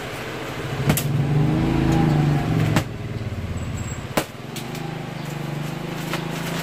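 A motor vehicle's engine runs close by. Its hum swells over the first few seconds and then eases off. Over it come three sharp snaps as scissors cut through the bale's plastic strapping and wrap.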